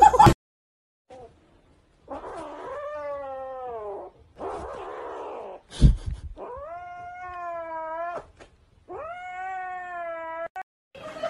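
Grey kitten yowling in three long, wavering calls that fall in pitch, with a noisy stretch between the first two and a thump just before the second, while it clutches a plush toy that a hand is pulling at: a possessive yowl over the toy. A brief loud burst is heard at the very start.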